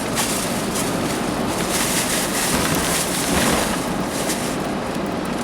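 Rushing road and wind noise of a car driving, a steady even hiss that swells a little in the middle.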